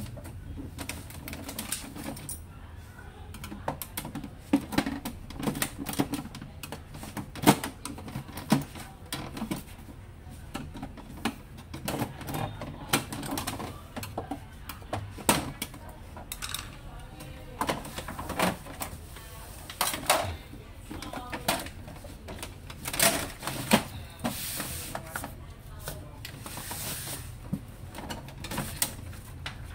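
Plastic and metal parts of an HP LaserJet M26a printer's housing clicking and knocking irregularly as the casing is pried with a flat tool and unclipped during disassembly.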